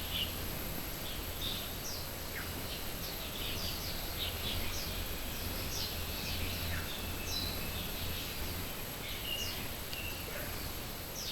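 Early-morning bird chorus: many short chirps and calls from several birds, over a steady high-pitched insect drone and a low rumble.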